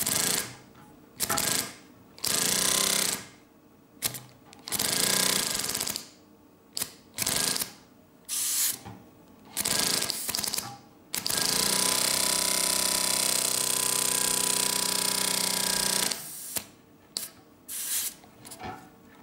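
Two-cylinder Lego pneumatic sleeve-valve engine running on compressed air in a string of short bursts as it is flicked into motion by hand. About eleven seconds in it runs steadily for about five seconds as a fast, even chatter of exhausting air and plastic pistons, then gives a few more short bursts near the end. Its offset second cylinder drives it clockwise whichever way it is started.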